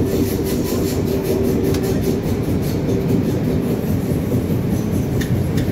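Old diesel railbus running along the line, heard from inside the driver's cab: a steady engine drone, with the wheels clicking quickly over the rails in the first couple of seconds and again near the end.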